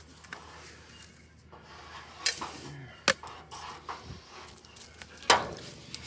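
Feed bowl and bucket being handled: a few sharp knocks and clatters, the loudest about five seconds in.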